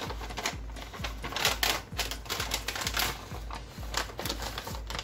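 Irregular crinkling and clicking, the noises of something being handled, over background music with a steady low beat.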